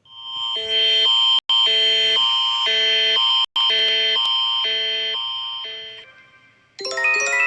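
Emergency alert signal: a steady high tone with a chord sounding over it in about six even pulses, broken by two very short dropouts, then fading out. Near the end a new run of bright chime notes starts.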